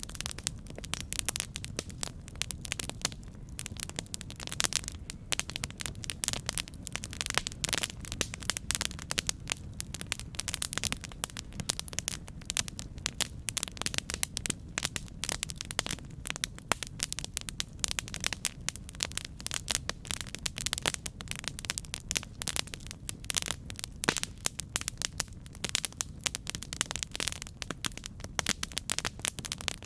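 Campfire crackling: many small, irregular pops and snaps every second over a steady low rumble of the fire.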